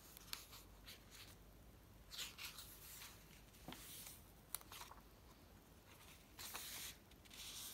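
Faint rustling and swishing of paper pages being turned and handled in a handmade junk journal, with a few small ticks; the longest swish comes near the end.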